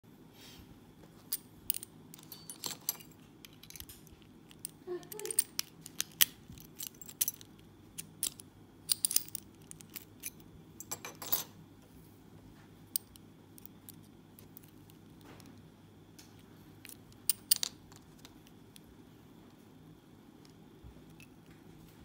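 Light metal clinks and clacks of a steel padlock, its keys and a disc detainer pick being handled, in scattered clusters that are busiest in the first half and sparse after.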